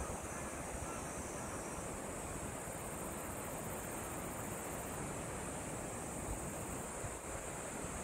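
Steady wind through the trees and buffeting the microphone, with a continuous high-pitched drone of grass insects over it.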